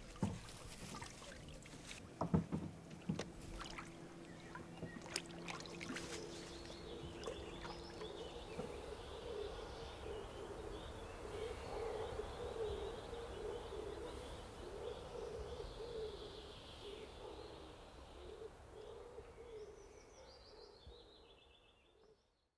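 A few sharp knocks and clatter in the first seconds, then birds calling steadily over outdoor ambience, fading out just before the end.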